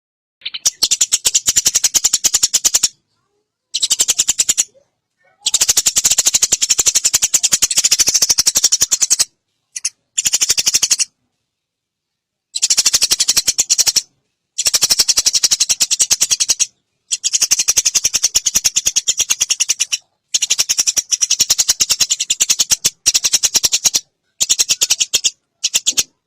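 Eurasian tree sparrows chirping: loud, rapid, high-pitched runs of chirps lasting one to four seconds each, broken by sudden silent gaps.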